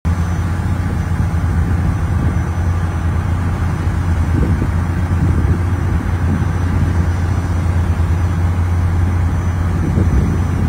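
Boat engine running steadily under way with a low, even drone, over the rush of wind and of water churning in the wake.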